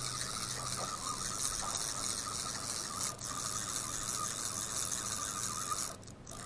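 Spinning fishing reel being cranked to reel in line: a steady mechanical whirr of the reel's gears, pausing briefly about halfway and stopping near the end.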